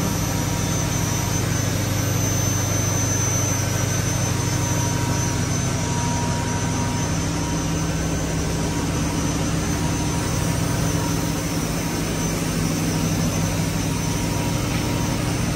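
MTU 76-litre V16 gas engine of a combined heat and power unit running at steady speed: an even, unbroken drone with a thin steady whine over it.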